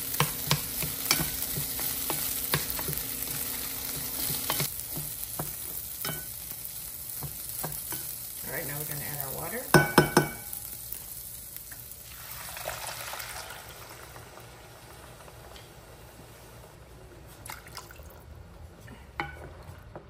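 Rice toasting in melted butter in a pan, sizzling while a wooden spoon stirs and scrapes it. A few loud sharp knocks come about ten seconds in, and the sizzle fades in the second half as liquid is added to the rice.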